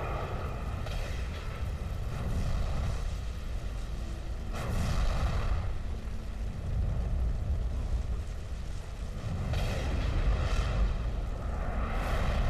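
Wildfire burning over the ground with wind rushing through it: a deep, steady rumble with gusts that swell about a second in, around five seconds in, and again near ten seconds.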